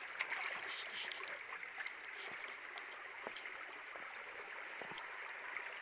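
Shallow creek water trickling over rock in a steady hiss, with faint scattered splashes and clicks.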